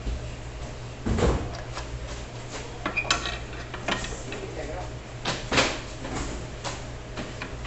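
Metal clatter from a cheese slicer's aluminium blade cover being set onto the blade and fastened: a heavy thump about a second in, then scattered clicks and knocks, with the loudest knocks about three and five and a half seconds in.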